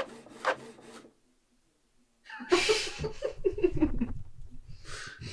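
A Canon printer running for about a second, a low hum with regular clicks, then it stops. After a short silence comes a hissing breath-like burst and a drawn-out vocal sound falling in pitch, with another hiss near the end.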